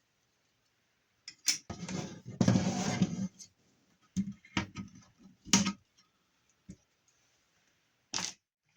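Dismantled scrap parts (sheet metal, tin casing and circuit boards) being handled and set down on a bench: a couple of seconds of rattling clatter, then several separate clicks and knocks.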